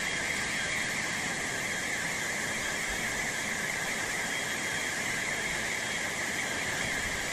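Floodwater rushing steadily through a flooded ground floor: a constant hiss with no change in level.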